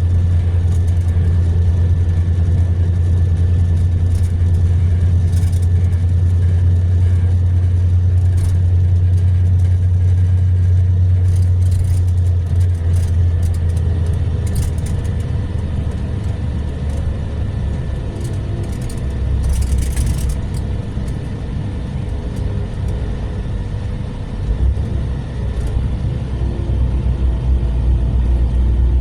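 Diesel engine of a Mercedes-Benz-chassis long-distance coach droning low, heard from inside the cabin with road noise and light rattles. About halfway through the drone drops lower and a little quieter, and there is a short hiss about two-thirds of the way through.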